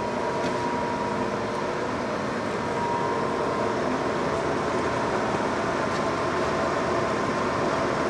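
Lion 20 x 40 gap bed lathe running steadily under power in its yellow headstock speed range, the gear drive giving an even mechanical hum with a steady whine.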